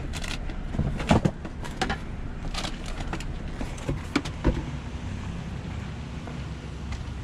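Scattered knocks, clicks and rustles from a cardboard box and snack bags being handled and moved at a dumpster, over a steady low hum.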